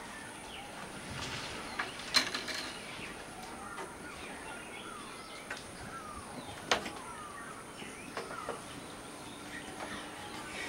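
Birds chirping and calling with many short whistled notes, and a few sharp clicks, the loudest about two seconds in and another near seven seconds.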